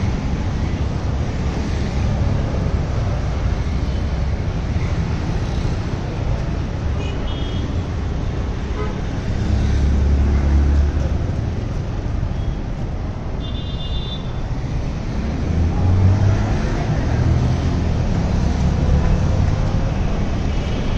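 Roadside traffic: motorbikes and cars running and passing in a steady rumble. A vehicle horn gives short high toots twice, about seven and fourteen seconds in.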